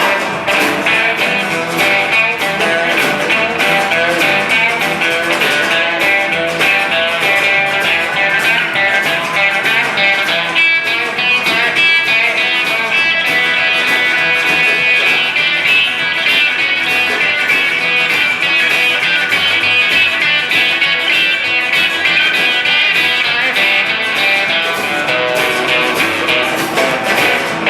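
Instrumental break of a live rockabilly band: guitars leading over upright bass and a steady drum beat, with no singing.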